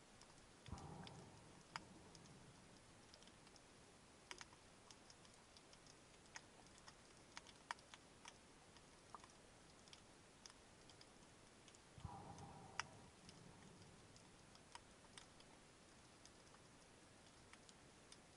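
Faint underwater ambience picked up by a submerged camera: scattered sharp clicks and crackles, irregular and a few per second at most. Two short, low rushing sounds come about a second in and again about twelve seconds in.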